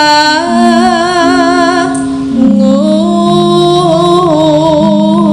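Javanese female singer (sindhen) singing long, wavering held notes of a Javanese song into a microphone, over gamelan accompaniment playing steady held notes.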